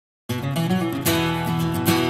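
Background music on guitar, starting abruptly about a quarter second in with strummed chords over sustained notes.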